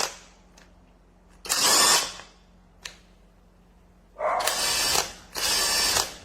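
Cordless impact wrench running in short bursts of hammering: one about a second and a half in, then two close together near the end.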